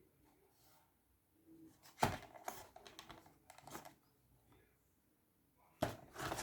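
Mechanical clicks and clacks from a QGK PT92 airsoft pistol being handled: a sharp clack about two seconds in, a run of lighter clicks for about two seconds, then another sharp clack near the end.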